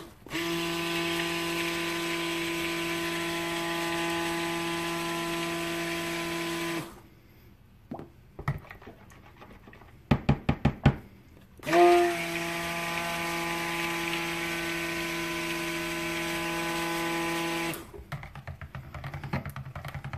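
Stick (immersion) blender running in cold process soap batter, blending it toward trace. It runs steadily for about six seconds, stops, then starts again with a brief rising whine and runs another six seconds. In the gap between the two runs there is a quick burst of sharp knocks.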